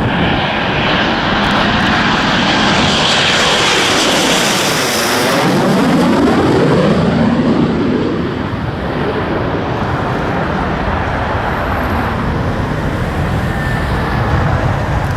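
Twin-engined RAF Tornado GR4 jet passing overhead as it comes in to land. Its engine noise swells to a peak about five to seven seconds in, with a sweeping tone that rises and then falls as it passes, and then fades slowly.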